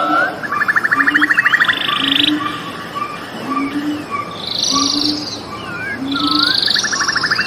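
Birds chirping over a chorus of frogs: a short low call repeats about once a second, buzzy pulsed trills come every few seconds, and high gliding chirps scatter throughout.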